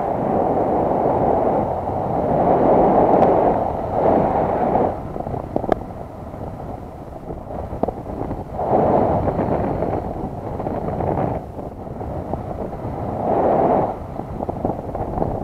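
Airflow buffeting the camera's microphone in paragliding flight, an even rushing that swells and eases every few seconds.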